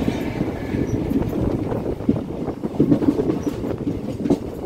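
Passenger train's rear coach rolling past and moving away, with steady rumble and irregular wheel clicks over the rail joints.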